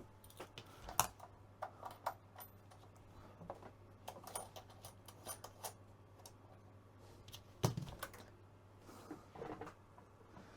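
Scattered light clicks and taps of the Kenwood TS-450S transceiver's switches and knobs being worked, with one heavier thump about three quarters of the way through, over a faint steady low hum. No audio comes from the receiver's speaker: the audio repair has not worked.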